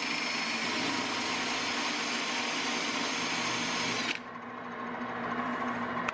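A wire wheel on a drill scrubbing loose carbon and debris off the head of an engine valve spinning in a metal lathe: a steady, loud brushing whir. About four seconds in the brush comes off the valve and the sound drops suddenly to the quieter hum of the machines still running.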